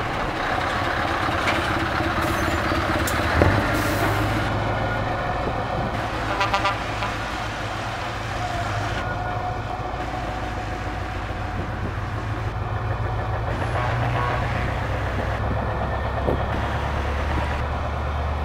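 Heavy diesel trucks running as they pass slowly in convoy, a steady low engine drone throughout. A brief horn toot comes about six and a half seconds in, and a sharp click a little after three seconds.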